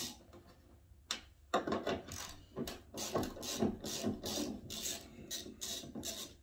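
Irregular scraping and rubbing noises, a string of short uneven strokes starting about a second in, from hand work on the race car's body.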